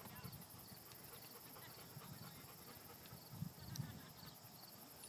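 Near silence: faint outdoor background with a row of soft, evenly spaced high ticks and a few soft low thumps about three and a half seconds in.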